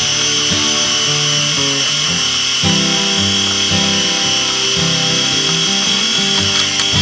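Nikon N80's built-in motor rewinding the 35mm film: a steady high whine that stops near the end as the roll is wound back into the cassette. Background music plays underneath.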